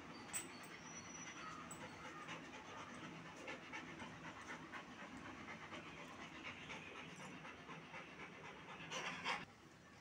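A dog panting close to the microphone in quick, uneven breaths, with a brief louder noise near the end.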